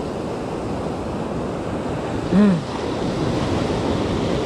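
Ocean surf breaking and washing up the beach, a steady rushing noise with some wind. About halfway through, a brief hum from a man's voice rises and falls over it.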